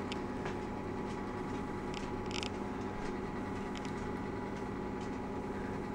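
Steady low electrical hum of room tone, with a few faint ticks and a short soft rustle about two and a half seconds in.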